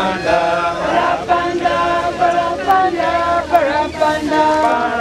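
A group of people singing a hymn together, holding long notes in a slow, steady tune.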